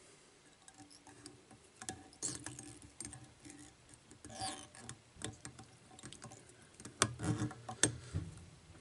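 Faint, irregular clicks and rustles of a whip finish tool and tying thread being worked around the head of a fly held in a vise, with a few louder clicks near the end.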